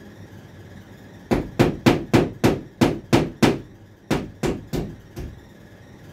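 Hammer driving a nail into a wall: about a dozen sharp blows, roughly three a second, with a brief pause partway through and a lighter final tap.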